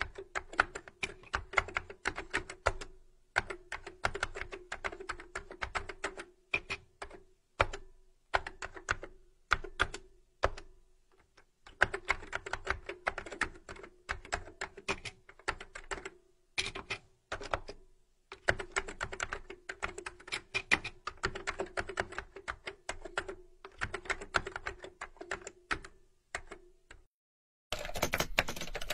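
Typing on a computer keyboard: quick runs of key clicks with short pauses between words and phrases. About a second before the end, a louder, denser rush of noise cuts in.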